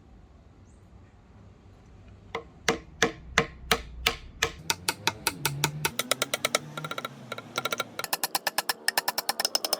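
Quiet at first, then a series of sharp knocks on wood that begins slowly, a little over two seconds in, and speeds up into a rapid, even patter of taps.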